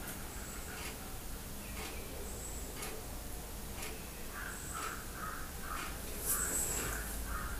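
Crow cawing, a quick run of six or seven harsh calls in the second half, with short high chirps recurring every two seconds or so. No mixer motor stands out.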